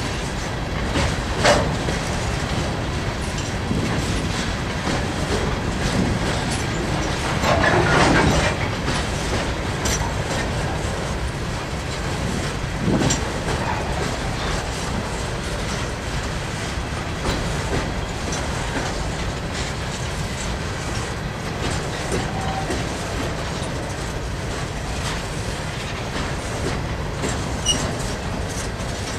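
Freight train of hopper cars rolling past, a steady rumble with the wheels clicking over the rail joints. There is a sharp bang about a second and a half in and a longer, louder clatter around eight seconds.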